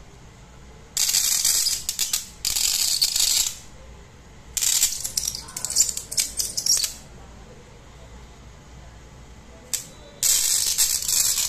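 Burning rod fizzing and crackling as it throws sparks, in three loud bursts of two to three seconds each, with a short click in between.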